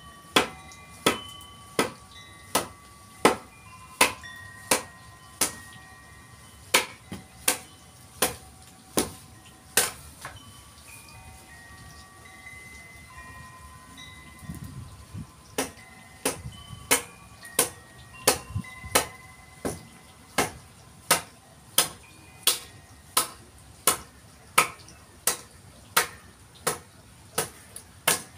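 Mallet striking a chisel cutting into red gum wood: sharp strikes about every 0.7 s, each followed by a brief ringing tone. The strikes pause for about six seconds around the middle, then resume at the same pace.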